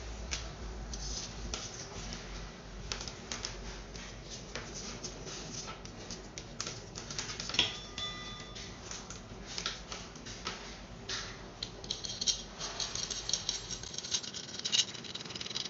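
Hands handling a chrome soap dispenser spout and its bundle of thin wires over a ceramic sink: scattered clicks, taps and rustles. About eight seconds in there is one sharp metallic clink that rings briefly, and near the end a denser run of quick clicks.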